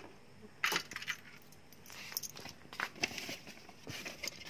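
Scattered light clicks and rustles from hands and a handheld phone moving about inside a car, a handful of sharp ticks spread over a few seconds.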